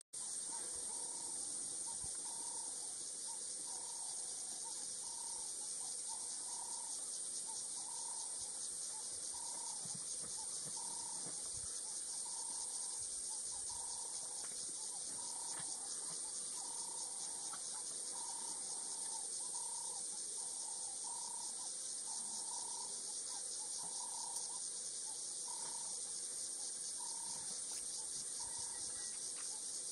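Steady, high-pitched insect chorus of bush crickets or cicadas, with a lower note repeated about once a second.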